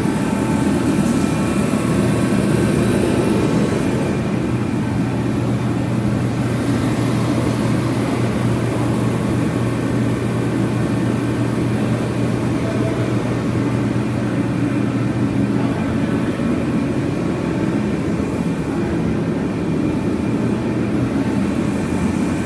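Steady mechanical drone with a constant low hum and no breaks.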